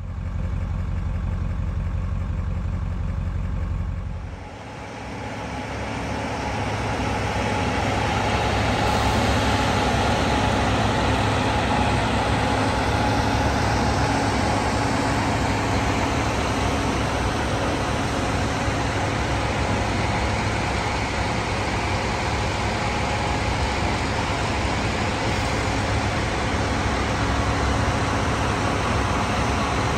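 Cog railway locomotive's biodiesel engine running steadily, a loud mechanical drone. About four seconds in the sound dips, then builds back up and holds.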